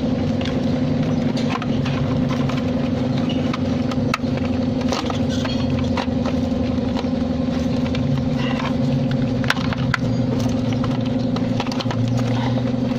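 Toyota Hiace van engine idling steadily, with occasional sharp clicks over it.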